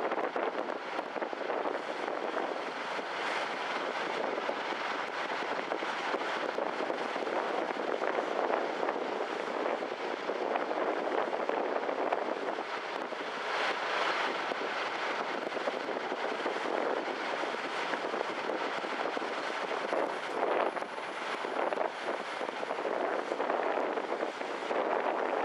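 Steady rushing noise of wind and water around the car ferry Kuniga under way, with wind buffeting the microphone. The noise swells and eases slightly.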